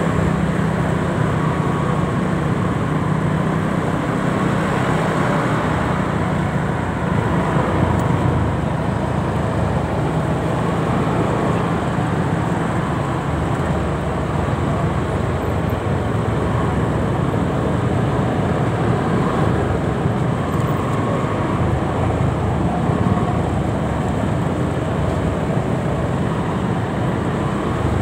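Motorcycle riding slowly through dense rush-hour traffic: its own engine and the engines of the many motorcycles and cars around it running steadily, with road noise, a constant mix without any single standout event.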